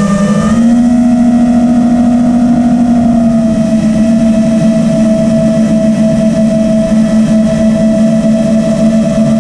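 FPV drone's electric motors and propellers whining steadily at near-constant throttle, the pitch stepping up slightly about half a second in, with a rush of air noise.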